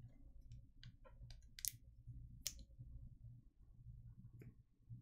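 Faint, scattered short clicks, a few of them louder, over a steady low hum.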